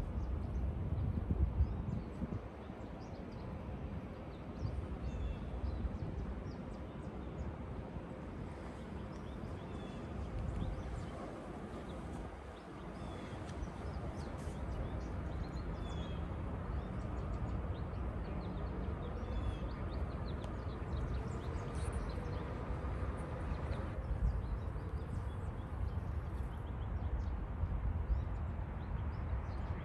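Wind rumbling on the microphone, with birds chirping here and there.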